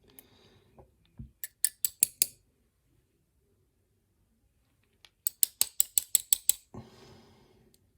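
Light metallic clicking from small lock parts being handled while a pin-tumbler lock is taken apart. There are about five quick clicks a second or so in, then a faster run of about ten clicks near the middle, followed by a faint rustle.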